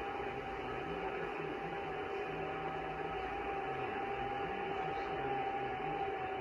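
Receive audio from a 6-metre amateur radio transceiver tuned to FT8: band-limited hiss carrying several thin steady tones and a low tone stepping up and down in short jumps, the digital FT8 signals.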